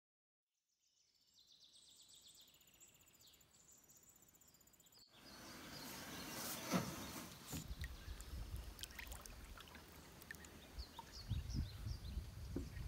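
Outdoor lakeshore ambience with a sharp knock and scrape about seven seconds in as a canoe is pushed off the shore into the water, followed by small bird chirps and low rumbling noise near the end. Before that comes a faint high chirping.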